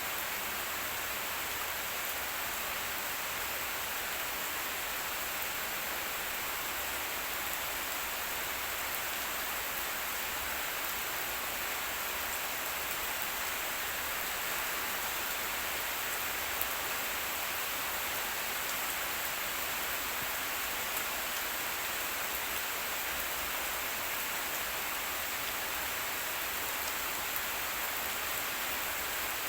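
Steady rain falling, an even hiss of many drops with the odd louder drip now and then.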